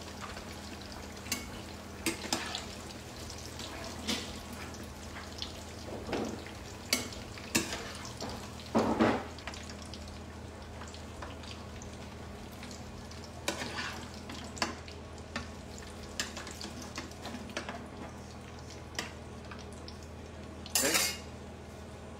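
Aubergine slices frying in shallow oil in a frying pan, a steady sizzle. Now and then a metal slotted spatula clinks and scrapes against the pan and plate as slices are lifted out, loudest about nine seconds in and near the end.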